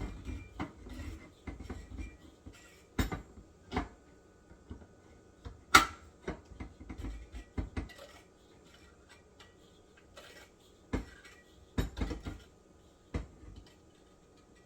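Irregular metal clicks and clanks of a broken can opener being worked on a can, failing to turn. The loudest click comes about six seconds in.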